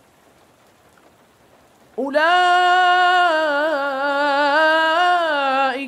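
A pause of near silence, then a man's voice chanting Quran recitation in melodic tajweed style begins about two seconds in. He holds one long drawn-out vowel for nearly four seconds, with small pitch turns, until it ends near the end.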